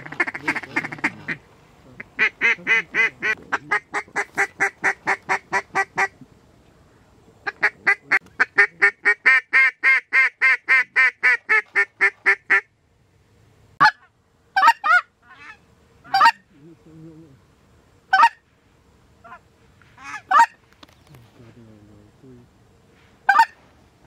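Goose call blown by a hunter: two long runs of fast honks at about five notes a second, then single spaced honks and clucks.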